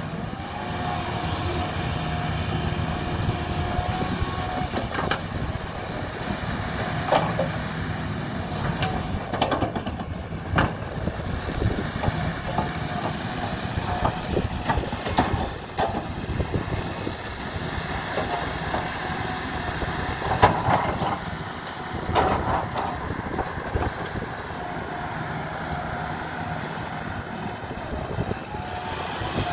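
Kobelco SK220 crawler excavator working a hillside cut: its diesel engine runs steadily under load, with irregular clunks and knocks as the bucket digs into and dumps rocky soil, the loudest about 20 seconds in.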